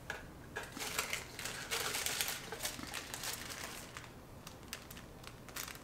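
Plastic packaging crinkling with light clicks and taps as small items are handled. The crinkling is densest from about a second in to past the middle, then gives way to a few scattered clicks.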